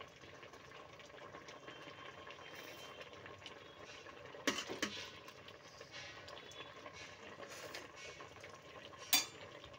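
Pot of rice, cumin seeds and salted water at a faint, steady boil, bubbling. Two sharp clicks break in, about halfway through and near the end.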